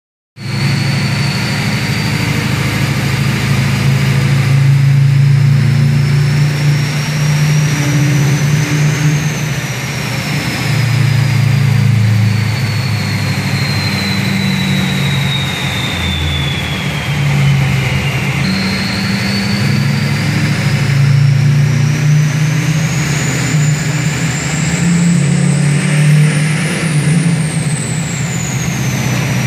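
Duramax diesel truck's billet 72 mm Danville Performance VGT turbo whistling over the low rumble of the engine. The whistle climbs, slowly falls away through the middle, then starts again and climbs higher near the end before dropping.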